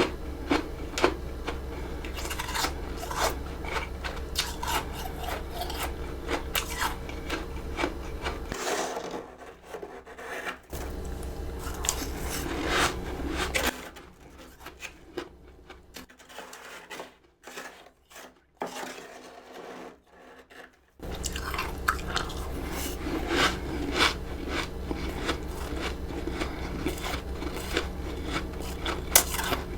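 Humidifier freezer frost being crunched and chewed close to the microphone: many sharp crunches with some rasping scraping. There is a quieter stretch in the middle.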